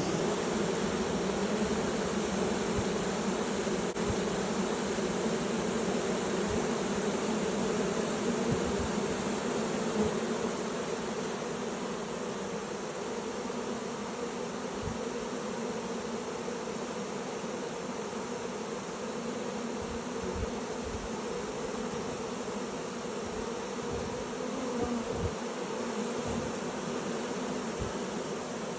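Honey bee swarm buzzing as it enters a new hive: a dense, continuous hum of many bees, steady throughout.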